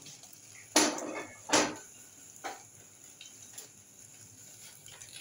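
Steel cookware clanking on a gas stove: two loud metal clanks a little under a second apart about a second in, then a few lighter knocks.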